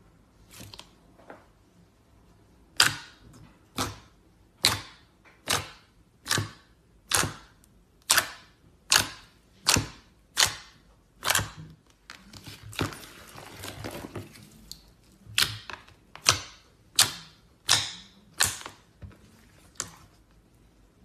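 Slime being pressed and poked, giving a steady series of sharp, wet pops and clicks a little more than one a second, with about two seconds of denser squishing crackle in the middle.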